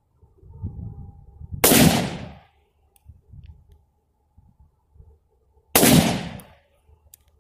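Two shots from an Egyptian Hakim semi-automatic rifle in 7.92x57 (8mm Mauser), firing steel-case ammunition, about four seconds apart; each is a sharp crack that trails off over about a second.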